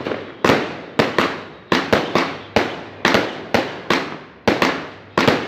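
Fireworks going off: a rapid, irregular series of loud bangs, about two or three a second, often in quick clusters, each with a fading echo.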